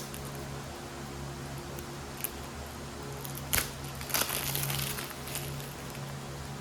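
Household handling noises: a few sharp clicks and a short crinkling rustle about four seconds in, over a steady low hum.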